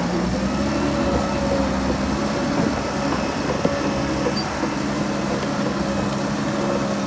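Heavy diesel earthmoving machinery running steadily at a constant engine speed, with one short knock about three and a half seconds in.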